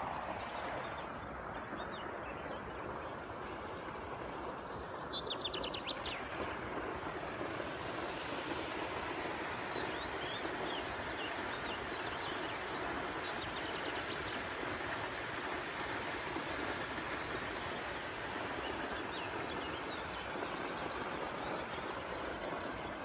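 Steady rushing of a mountain river or stream, with birds chirping over it. About five seconds in, one bird gives a quick trill of about ten notes that falls in pitch.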